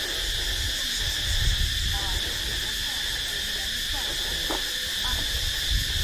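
Steady, high-pitched buzzing chorus of insects in tropical forest at dusk, with faint distant voices beneath it.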